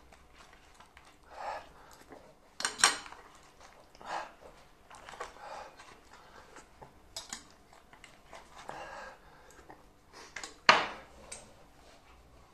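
Metal spoon clinking and scraping against a dish, with short sharp breaths in between. A louder knock comes about three seconds in and another near the end.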